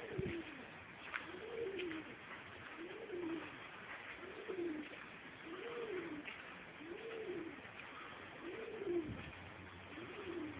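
A dove cooing over and over: a low single coo that rises and falls, repeated evenly about every second and a half, eight times.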